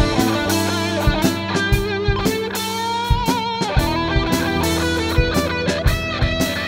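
Rock band playing with electric guitars and a drum kit. A lead guitar holds sustained notes that waver in pitch with vibrato over regular drum hits.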